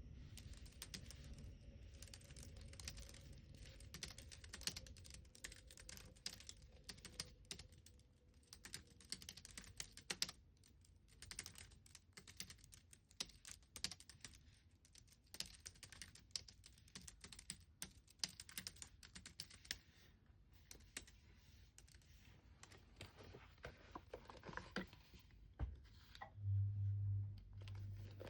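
Typing on a computer keyboard: quick, irregular key clicks, dense at first and thinning out in the second half. Near the end a low buzz starts and is the loudest sound.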